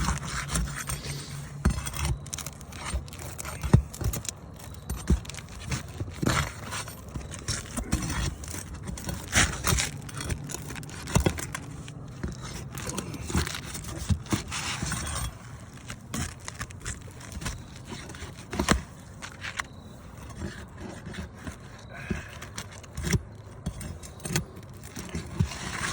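Asphalt roof shingles being pried and pulled loose with a metal nail-pulling tool: irregular scraping, crackling and metal clinks.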